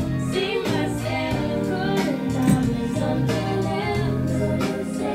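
Music with singing over sustained instrumental notes, at a steady level.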